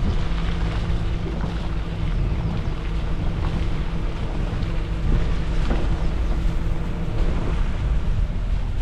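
Suzuki Jimny driving off-road, its engine running at a steady drone under wind and road noise, with a few light knocks and rattles.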